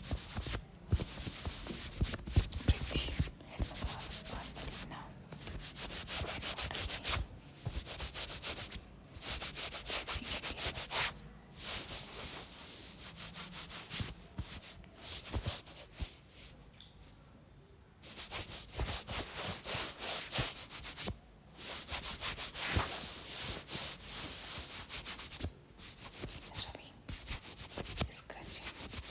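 Fingers rubbing and scratching through hair on the scalp during a head massage: runs of rustling strokes, each lasting a second or so, broken by short pauses. The strokes are softer for a few seconds a little past the middle.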